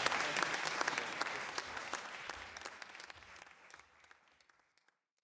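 Audience applauding, the clapping fading away over about four seconds.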